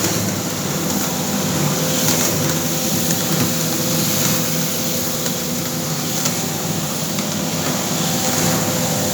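N5000i coffee roasting machine (5 kg-per-batch) running on a test run: a steady mechanical whir with a thin constant hum.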